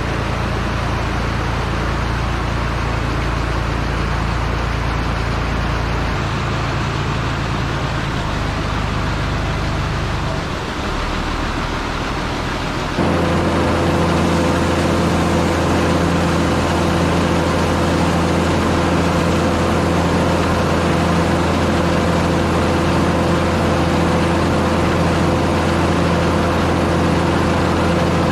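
A vehicle engine running steadily under a broad rumble. About 13 seconds in, the sound cuts abruptly to a louder, steady engine drone with a clear, even pitch.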